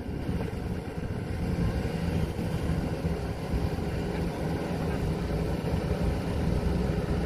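Kobelco SK140 excavator's diesel engine running steadily.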